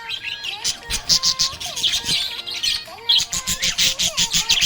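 Budgerigar chirping and warbling: quick runs of short, high chirps mixed with gliding warbled notes, repeating in bursts about every two seconds.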